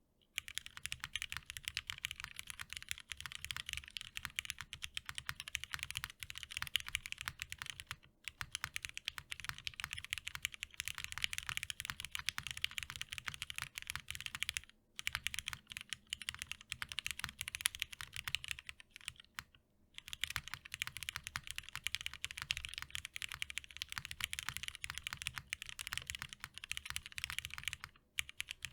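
Fast, continuous typing on an Ingot TKL custom mechanical keyboard with a top-mounted aluminium plate and lubed Cherry MX Hyperglide Black linear switches, the keystrokes softly clacking, with short pauses a few times.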